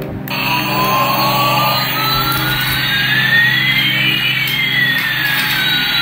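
Battery-powered toy Airbus A380 airliner switched on, its speaker playing a jet-engine sound effect: a steady roar with one whistle rising and another falling in pitch, crossing about four seconds in.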